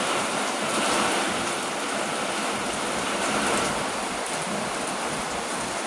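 Heavy rain falling in a steady hiss, with no thunder.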